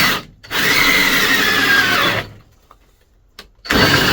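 Power drill running in bursts while drilling a hole for a ceiling light. A long run in the middle slides down in pitch as the drill labours, and a short final burst comes near the end.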